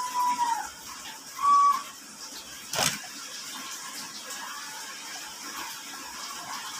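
Handling noise from a smartphone being pressed into a clear plastic protective case, with a sharp click about three seconds in. Two short high tones come before it, one near the start and a louder one about a second and a half in.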